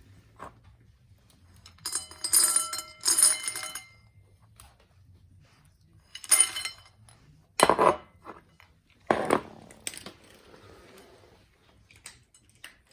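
A dog's food bowl clinking and rattling as a dog eats from it and nudges it around. There are ringing rattles for about two seconds a couple of seconds in and again about six seconds in, then two harder knocks near the eight and nine second marks.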